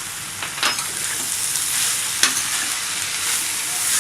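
Chilli chicken pieces and vegetables sizzling in hot oil in a pan while being stirred, with a steady hiss and two sharp clicks of the utensil against the pan.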